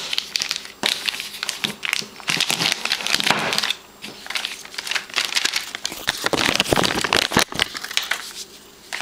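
Clear plastic bag crinkling and crackling in irregular rustles as a laptop battery is unwrapped and pulled out of it, dying down near the end.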